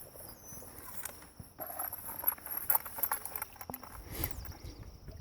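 Footsteps: a short run of irregular steps about two seconds in.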